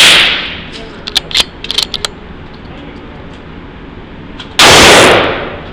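Christensen Arms .22 LR rifle firing CCI Stinger rounds: a shot rings out at the start and dies away, a quick run of sharp metallic clicks follows about a second later, and a second shot goes off about four and a half seconds in.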